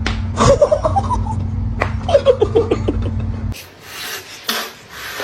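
Person laughing in two quick runs of short 'ha-ha' notes that fall in pitch, over a steady low hum that stops about three and a half seconds in, followed by a few breathy noisy bursts.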